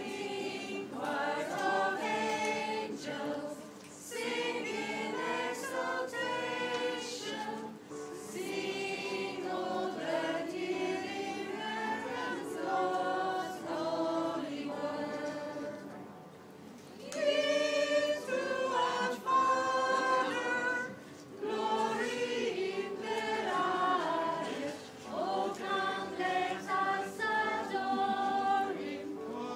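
A group of voices singing a Christmas carol in phrases, with short breaks between them; the singing grows louder a little past halfway.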